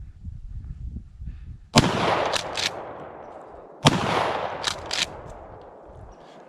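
Two shotgun blasts about two seconds apart, each rolling away in a long fading echo, with a couple of fainter sharp cracks after each.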